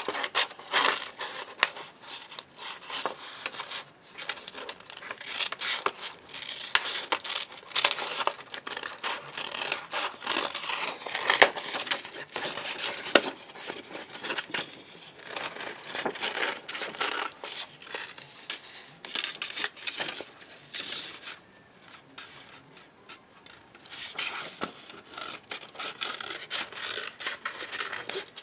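Paper and sticky tape being handled: tape pulled off and torn, paper crinkling and rustling, in an uneven run of small crackles and clicks that eases off for a few seconds about three quarters of the way through.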